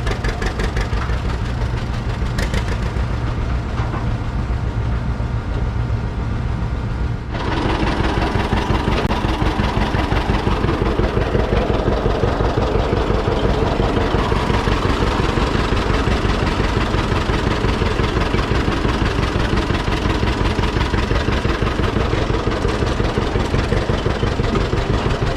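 An engine running steadily with a regular low throb; about seven seconds in the sound changes abruptly and becomes louder and fuller.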